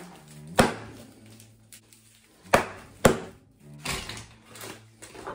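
A few sharp knocks on a kitchen worktop, two of them close together near the middle, over faint background music.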